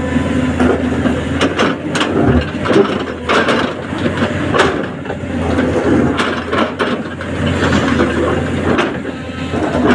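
Diesel engine of a 210LC hydraulic excavator running steadily, with irregular knocks and clanks over it.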